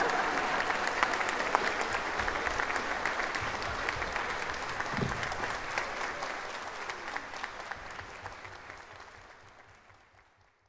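Audience applauding a live orchestral performance, the clapping dying away toward the end.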